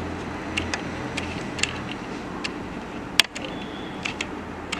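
Steady low hum of a running solar-system transformer, weakening about two seconds in, with scattered light clicks and ticks and one sharper click about three seconds in.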